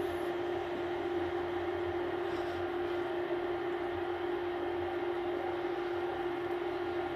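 Steady mechanical hum with one constant mid-pitched tone over an even hiss, unchanging throughout.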